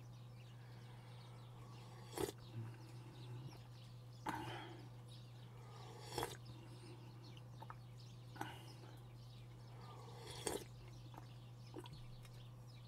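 Quiet eating sounds: a few short mouth smacks or clicks, about one every two seconds, over a steady low hum.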